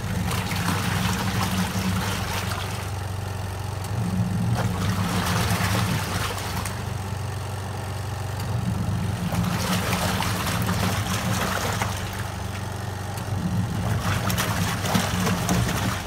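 Crafft CRB80-789ST twin-tub washing machine in its wash cycle: a steady motor hum, with water and clothes sloshing in the tub in surges that come and go about every four seconds.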